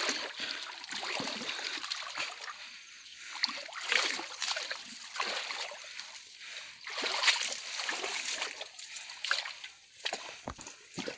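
Footsteps in rubber boots on a wet, muddy path, with irregular squelching and splashing steps and grass and brush swishing against clothing.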